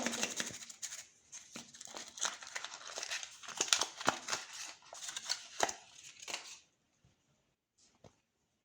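Ice cream cone crunching and cracking as a meat grinder crushes it: a dense, irregular run of crackles that stops after about six and a half seconds, followed by a single click near the end.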